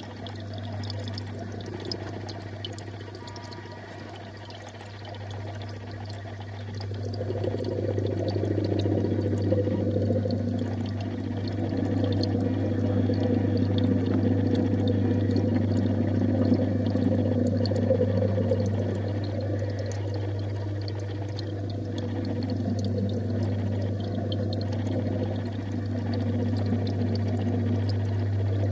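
Aquarium water circulation: a steady low electrical hum from the pump with water pouring and churning over it, the water growing louder after several seconds.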